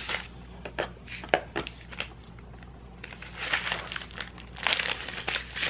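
Clear plastic zip-top bag crinkling as it is handled, with scattered sharp ticks at first and denser crinkling in the second half.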